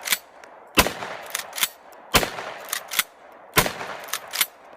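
Shotgun sound effect: three blasts about a second and a half apart, each with a short ringing tail and followed by a lighter click.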